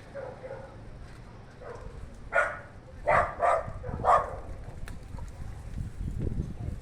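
A dog barking four times in quick succession, followed by a low rumble near the end.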